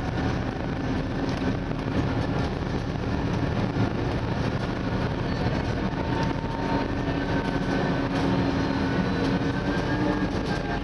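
Scania CityWide 12 LF CNG city bus, heard from inside at the front while it drives: a steady drone from its natural-gas engine mixed with road and tyre noise. A faint whine rises slightly near the end.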